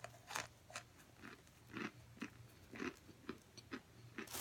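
Close-up chewing of hard oven-baked cornstarch chunks, a short crunch about every half second, with a louder rustle near the end.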